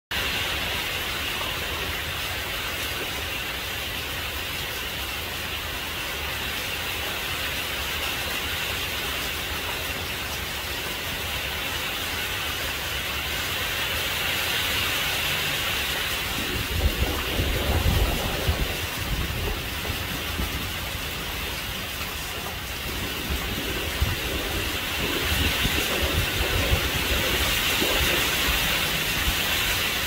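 Rain falling steadily in a constant hiss, with strong wind gusting onto the microphone in low, uneven rumbles from about halfway through and again near the end.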